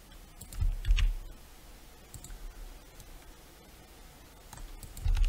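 A few faint computer mouse clicks and key presses on a desk, with soft low thumps about a second in and again near the end.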